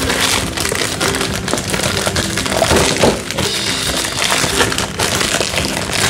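Clear plastic wrapping film crinkling and tearing as it is pulled off a cardboard model-kit box, over steady background music.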